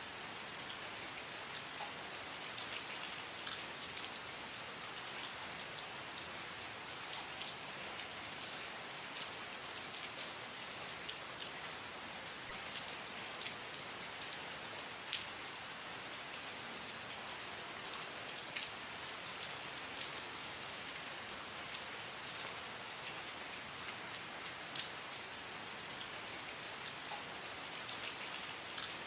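Steady rain falling, an even hiss with many separate drops landing as short sharp ticks.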